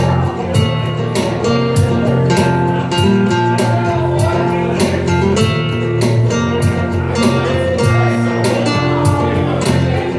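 Live rap-rock band playing: guitar notes over a low bass line and a steady beat.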